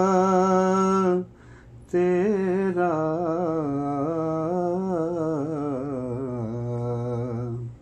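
A man singing a naat, a devotional song, with no instruments: a held note that breaks off about a second in, then after a short breath one long, wavering melismatic phrase.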